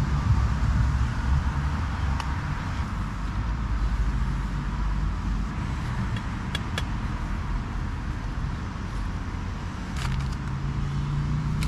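Steady rumble of road traffic circling the roundabout, with a few small clicks of utensils, and a crisp packet rustling about ten seconds in.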